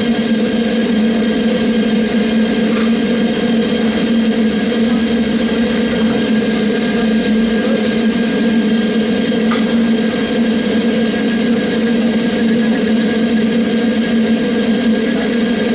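Double Fairlie steam locomotive standing at rest: a steady hum with a constant hiss of steam, unchanging throughout.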